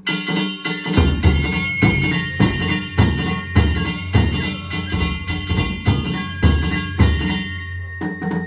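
Danjiri narimono ensemble: taiko drums and small hand gongs struck in a fast, steady beat, the gongs ringing, with a high held melody line that changes pitch now and then.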